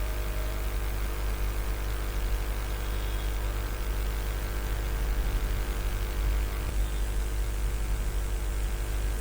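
Steady electrical hum with hiss and a low rumble.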